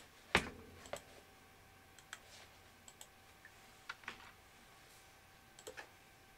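A few scattered clicks and taps of a computer mouse and keyboard, the loudest about a third of a second in, over a faint steady tone.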